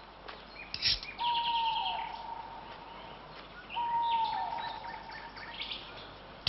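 Birds calling: a held whistle that drops in pitch at its end, heard twice, among quick high chirps and trills.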